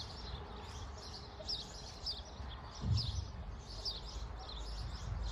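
A small bird chirping over and over in the background, short high chirps at roughly two a second, over a faint steady hiss. A low thud comes about three seconds in.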